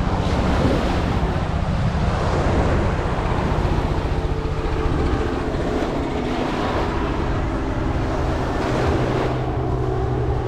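Ocean surf washing in with wind buffeting the microphone, over a steady engine drone.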